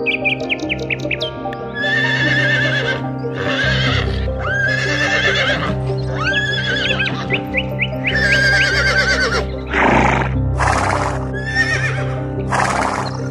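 Horses whinnying several times in a row, each call a wavering, shaky cry, over steady background music. A few short breathy blasts follow near the end, and quick bird chirps sound near the start.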